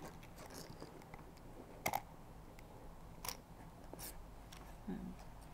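A few sharp clicks and light handling noise as alligator-clip leads are picked up and fitted, the loudest a quick double click about two seconds in, with single clicks a little after three and four seconds.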